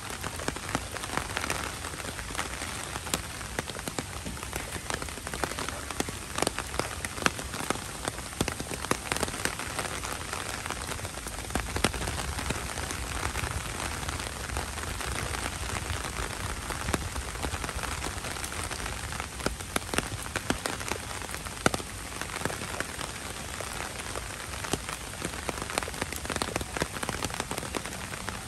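Heavy rain falling steadily on wet pavement, with many sharp individual drop hits ticking over the hiss.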